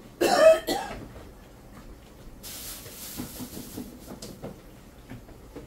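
Kitchen handling sounds: a sharp clatter of two knocks near the start, then a soft hiss lasting about a second and a half, with light knocks as the refrigerator is opened and searched for butter.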